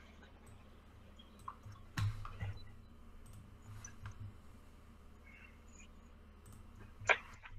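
A few short clicks and knocks, the loudest about two seconds in and another near the end, over a faint low hum.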